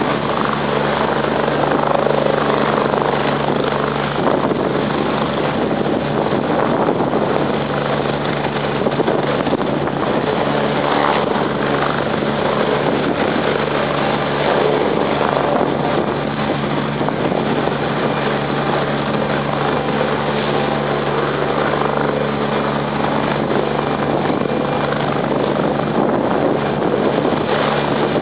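Air ambulance helicopter running steadily, a continuous rotor and engine sound with a steady low hum of several tones beneath it.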